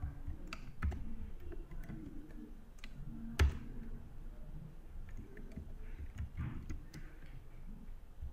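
Computer keyboard typing: irregular, scattered keystrokes, with one louder click about three and a half seconds in.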